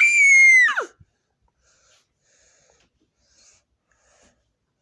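A high-pitched whining cry at the start, about a second long: it rises quickly, holds, then slides down. After it there are only faint rustles and clicks.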